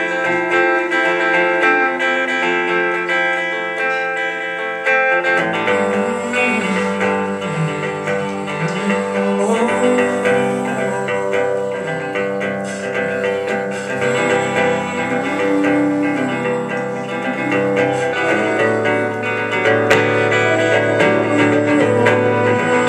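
Guitar playing an instrumental passage of a song, sustained chords and picked notes; about five seconds in, lower notes join and move under the melody.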